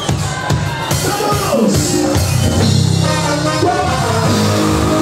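Live cumbia band playing loud. Drum hits sound in the first second, then a heavy electric bass line carries the rest, with a voice briefly over it.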